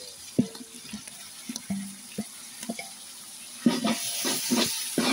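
Large aluminium cooking pot with tomatoes in hot oil: a few light knocks at first, then from about three and a half seconds in, a ladle stirring and scraping through the pot over sizzling oil.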